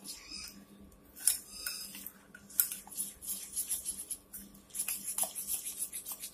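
Metal spoon stirring thick, gritty semolina batter in a ceramic bowl: repeated scraping strokes against the bowl, with two sharper clinks of the spoon on the bowl's side and quicker strokes near the end.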